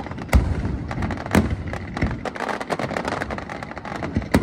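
Aerial fireworks going off: three loud bangs, about a third of a second in, a second later, and near the end, with many smaller pops and crackles between them.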